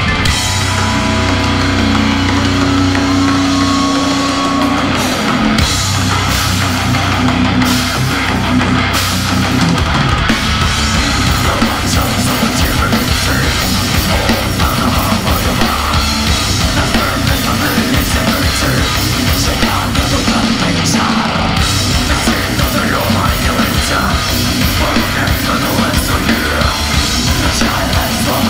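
Heavy metal band playing live, loud, with keytar, distorted guitars and drum kit. Held low notes carry the first several seconds, then the full band comes in with fast drumming from about ten seconds in.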